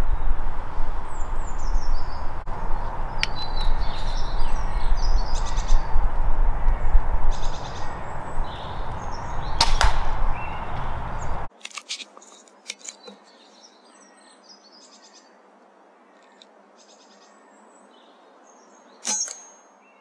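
Air rifle shot with a sharp crack about ten seconds in, over a loud low rumble and small birds chirping. After a sudden drop to a much quieter background, a second sharp crack with a brief high ring comes near the end.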